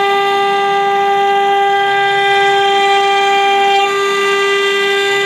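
Acctek CNC router spindle running at high speed with a steady, high-pitched whine while its bit mills a shallow pocket in a wooden panel, with the rasp of the cut beneath. The whine shifts slightly just under four seconds in.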